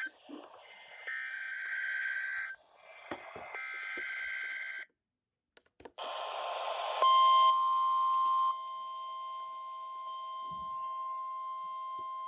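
Weather alert radio's speaker sounding the start of a NOAA Weather Radio Required Weekly Test. Two bursts of SAME digital data tones come first, then about a second of silence. About seven seconds in, a steady alert tone begins, louder for its first second and a half.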